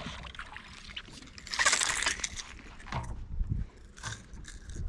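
Handling noise as a small largemouth bass on a jerkbait is landed by hand at the side of a boat. A loud rushing burst comes about a second and a half in, followed by a few dull knocks.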